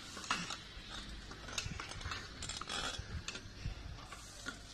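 Quiet, irregular clicks and rattles from a bicycle being handled and moved, with the hand working at the handlebar and brake lever.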